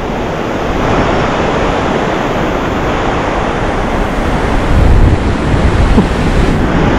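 Ocean surf breaking and washing up a sandy beach, a steady rushing noise with wind on the microphone, growing louder about five seconds in.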